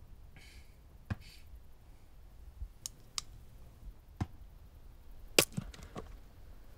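A few sharp metallic clicks from a revolver being handled, then one hard axe blow into a wooden chopping block about five seconds in, with a few smaller knocks after it.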